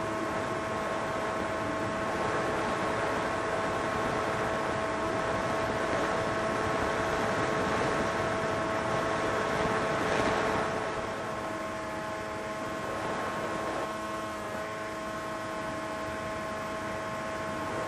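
Small FPV drone's electric motors and propellers whining steadily, swelling louder about ten seconds in and then easing.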